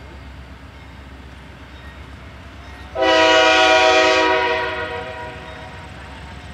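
A diesel locomotive's multi-chime air horn sounds one blast: a loud chord that starts abruptly about halfway through, holds for about a second and a half, then dies away. A steady low rumble runs underneath.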